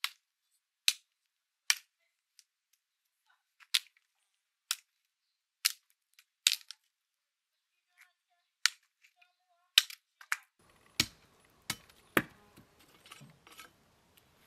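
A hand sickle's blade worked against a wooden staff: a dozen or so short, sharp strokes, roughly one a second, with near silence between them.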